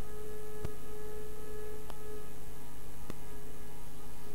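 Steady electrical hum with a steady pitched tone over it. Three faint clicks come through it.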